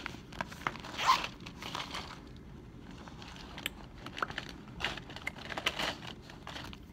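Plastic crinkling and rustling as a clear plastic zip pouch is handled, with scattered light clicks and a louder crinkle about a second in.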